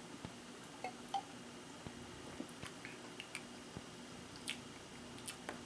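Faint mouth sounds of someone tasting a fizzy drink: swallowing, then scattered soft lip and tongue clicks and smacks, over a low steady hum.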